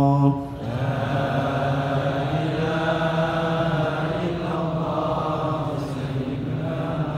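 A congregation chanting dhikr together. A loud held note from a single voice breaks off just after the start, and the steady many-voiced chant carries on.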